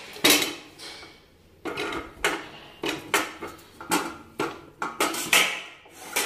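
Whole potatoes dropped one at a time into an aluminium pressure cooker. Each lands with a knock against the metal pot and the potatoes already inside, about two knocks a second, with a short pause a little after one second in.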